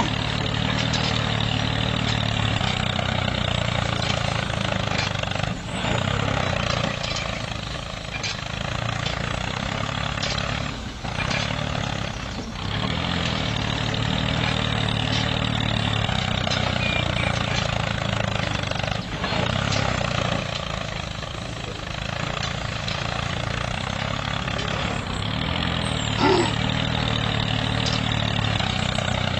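Tractor engine running steadily with a low drone, easing off briefly a few times.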